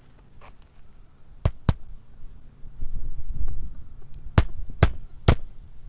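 Hammer driving roofing nails into a replacement asphalt shingle: two sharp strikes about a second and a half in, then three more in quick succession near the end.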